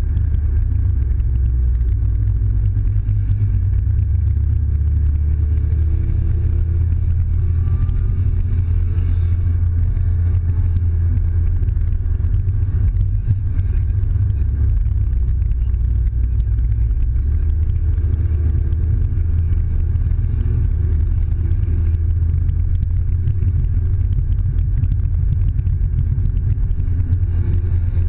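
Steady low drone of a Mazda6's engine and tyres heard from inside the cabin while driving, with the engine note drifting slightly up and down in pitch.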